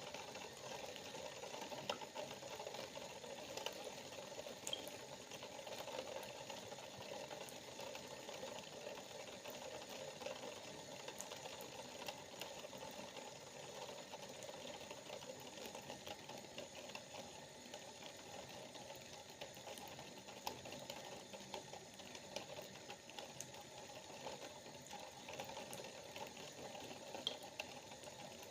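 Water droplets dripping: a faint, steady patter of many small drips, with an occasional louder drop.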